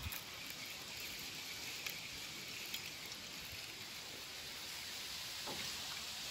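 Faint, steady hiss of water, with small ripples lapping at the side of a small boat.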